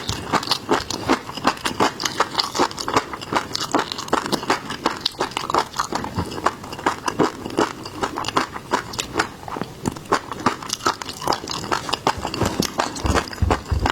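Close-miked eating: biting and chewing seafood, a quick run of wet crunches and mouth clicks, several a second.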